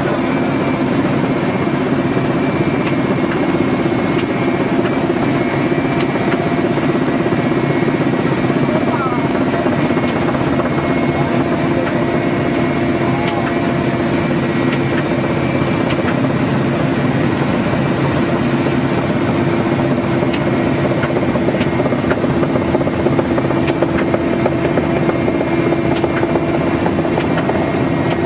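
Helicopter cabin noise: the steady drone of the turbine engines and rotor heard from inside the cockpit, with a steady high whine over it.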